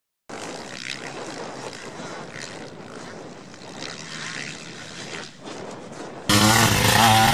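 Faint drone of distant motocross bike engines over open-air background noise. About six seconds in, a nearby motocross bike engine comes in suddenly and loud, revving up and down.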